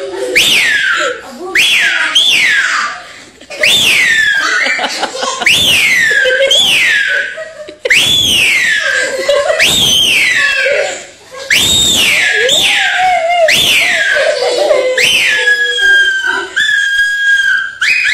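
A man's mouth-made sound imitation: a long series of high whistled notes, each sliding steeply down in pitch, about one a second. Near the end it changes to a few steady held whistle notes. People laugh along underneath.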